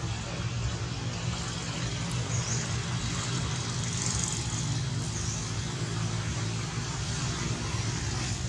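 Steady outdoor background noise: a constant low hum under an even hiss, with a few faint high-pitched swells in the middle.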